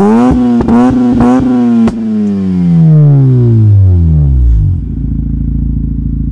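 Mazda RX-8's RENESIS rotary engine revved in a few quick blips, then its revs fall away smoothly over a couple of seconds and settle to a steady low idle.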